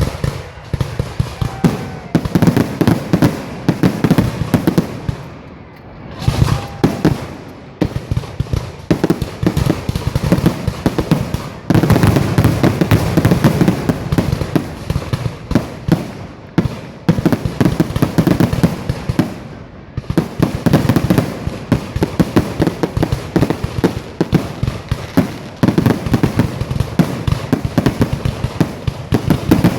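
Fireworks going off in quick, dense volleys of bangs, many per second, easing briefly about 6 seconds and 20 seconds in before picking up again.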